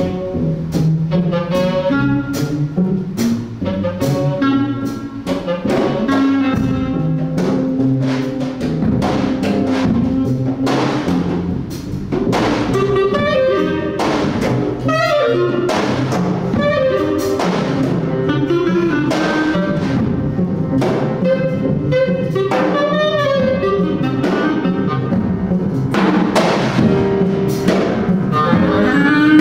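Live jazz: a clarinet plays a moving melodic line over double bass and a drum kit, with frequent drum and cymbal strokes throughout.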